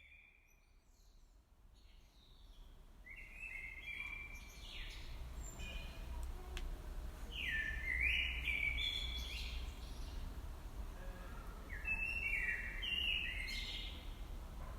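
A songbird singing three short phrases of quick, stepped high notes, about four seconds apart, over a steady low rumble.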